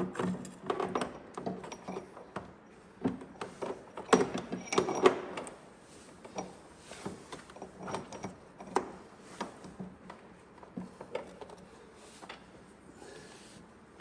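Irregular clinks and knocks of metal tools and parts being handled. They are thickest in the first second and again around four to five seconds in, then sparser and fainter.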